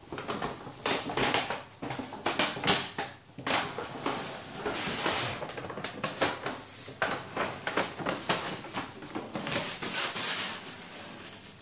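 Brown paper carrier bag rustling and crinkling in irregular bursts as a cat crawls into it and shifts about inside.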